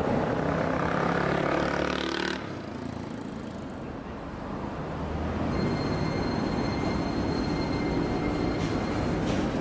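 Yu-Tram low-floor electric tram at a platform: a steady humming tone stops suddenly about two and a half seconds in. After a quieter spell, the tram starts moving with a steady high electric whine over a low hum.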